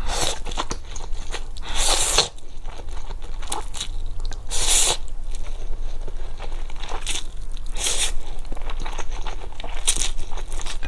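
Close-miked slurping of spicy instant fire noodles: several hissing slurps a second or two apart, the strongest in the first five seconds, with wet chewing clicks between them.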